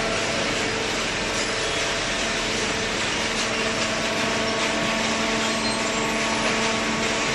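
Hydraulic baling machine running: a steady machine hum with several held tones over a constant rushing noise, without a break.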